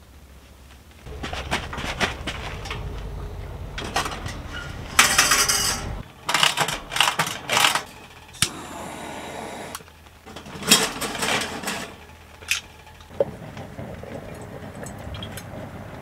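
Camping gear being handled: a series of metal and dishware clinks, knocks and rattles as things are picked up and set down, with a few short rushes of noise in between.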